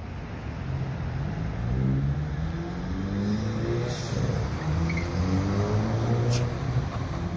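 Car engine accelerating as traffic pulls away through an intersection: the engine pitch climbs, drops back about four seconds in, and climbs again, over steady road noise.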